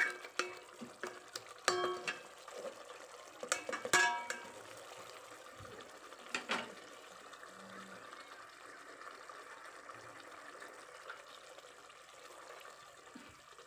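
A spoon clinking and scraping against a metal pot as pieces of pork are stirred in their sauce, with a few sharp ringing clinks in the first several seconds. After that there is only a faint steady hiss.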